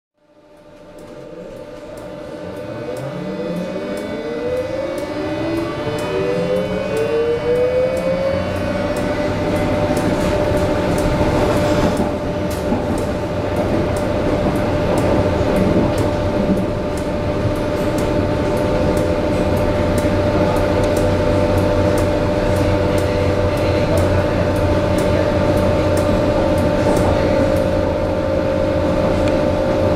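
Inside a Berlin U-Bahn H-series train pulling away: the traction drive's whine climbs in several pitches over the first eight seconds or so as the train accelerates, then holds a steady tone. Under it is the rumble of the car running along the track, with a run of faint clicks.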